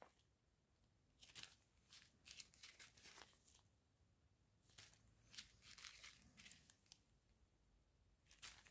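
Faint crinkling of small plastic zip-lock bags of round resin diamond-painting drills being handled, a few scattered soft rustles with near silence between them.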